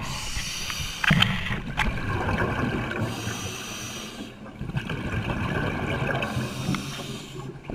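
Scuba diver breathing through a regulator, heard underwater on the camera's audio: hissing inhalations alternating with the low gurgle of exhaled bubbles.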